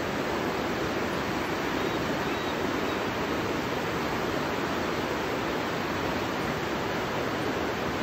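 Fast river rapids rushing steadily, a constant roar of white water.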